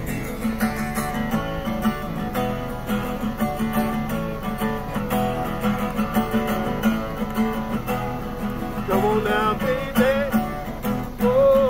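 Acoustic guitar being played, strummed chords, with a man's voice singing from about nine seconds in.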